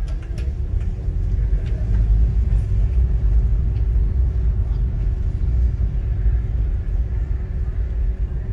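Steady low rumble of a car driving, heard from inside the cabin, with a faint steady hum over it.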